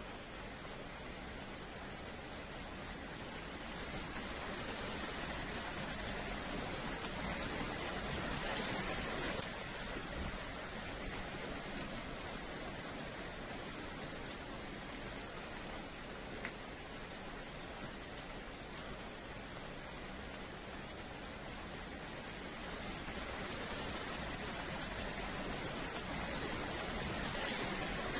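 Rain falling steadily on wet paving, an even hiss of drops that grows heavier twice, about four seconds in and again near the end.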